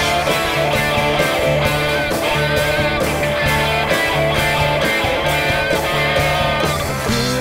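Instrumental break of a rock song: electric guitar playing a bending melody line over drums keeping a steady beat and a moving bass line, with no singing.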